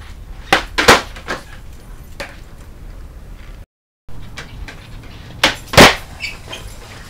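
Skateboard tricks on a concrete floor, twice: each time a sharp snap of the tail hitting the concrete, then a louder clack as the board lands, with a few lighter knocks after. A moment of dead silence separates the two tricks.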